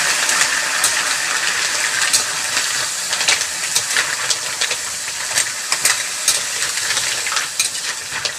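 Green mussels in their shells sizzling in hot oil in a large wok, the sizzle slowly fading, with frequent clicks and scrapes of a metal spatula stirring the shells against the pan.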